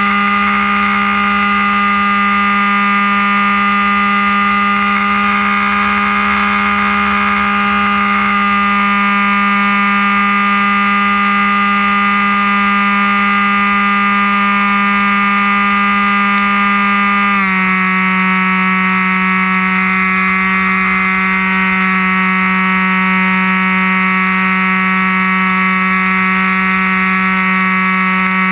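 Electric brushless outrunner motor (1580KV Emax) spinning a 7x5 propeller on an RC plane, a loud, steady whine picked up close by an onboard camera. About two-thirds of the way through, the pitch steps down a little and holds there.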